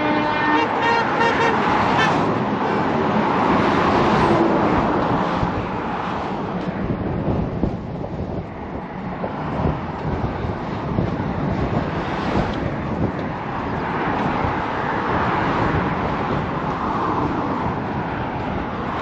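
Steady outdoor road traffic noise: an even rushing from passing cars, rising and falling a little without ever stopping.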